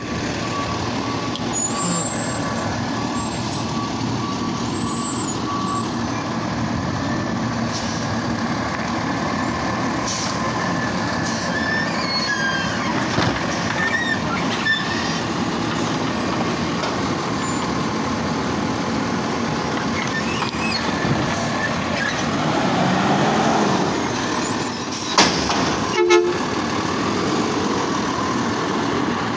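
Heil automated side-loader garbage truck running steadily while its hydraulic arm handles a wheeled trash cart. The sound swells for a few seconds about three-quarters of the way in, followed by a few sharp bangs.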